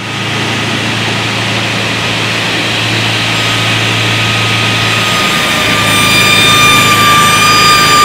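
SC101 table saw running, a low hum under a high whine that grows louder and clearer from about three seconds in.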